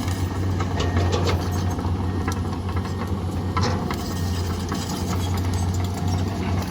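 Large diesel engine of heavy earthmoving machinery running steadily, with a few scattered knocks.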